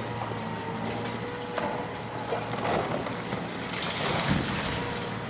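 Demolition excavator's engine and hydraulics running steadily while concrete chunks clatter down, then a tall concrete wall section crashes onto the rubble heap partway through, with a rush of falling debris.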